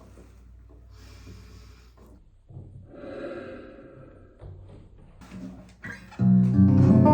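Faint handling noises, then about six seconds in a Martin OM-28 acoustic guitar is strummed and a full chord rings out loudly as playing begins.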